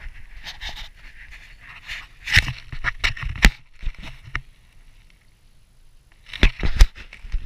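Handling noise on an action camera as it is set down on packed snow: a cluster of sharp knocks and scrapes about two to three and a half seconds in, and two more loud knocks near the end.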